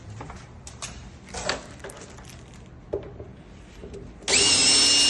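Light clicks and handling, then near the end a power drill runs at steady speed with a high motor whine for about a second.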